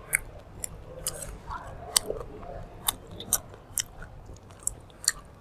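Close-up chewing of grilled meat, with sharp, crisp clicks and crunches coming irregularly, a few each second.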